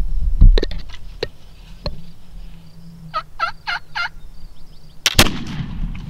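A run of five quick turkey call notes about three seconds in, then a flintlock shot a little after five seconds: a short crack of the priming flash and the main black-powder charge going off, with a ringing tail. Low rumble and a few sharp clicks of handling come before the calls.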